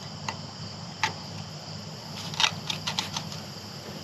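Scattered light clicks and clinks of hand tools and parts being handled, about half a dozen, over a steady low hum.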